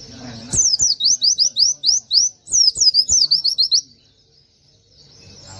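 Pleci (white-eye) singing a fast run of loud whistled notes, each sweeping downward, about six a second, broken by a short pause in the middle. Another run begins right at the end.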